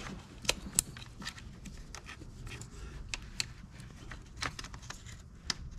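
Scattered light clicks and rattles of plastic wiring parts being handled with gloved hands: the oxygen-sensor wire and its connector being pressed into the plastic harness channel on a BMW 325i engine. A low, steady rumble lies under them.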